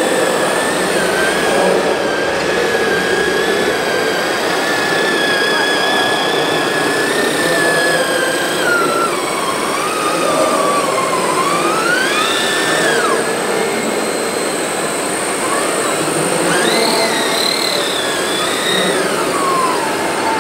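Hydraulic pump of a large-scale RC Liebherr 954 excavator whining as it digs. The pitch holds steady for the first several seconds, then sags and climbs again several times as the operator works the arm and bucket.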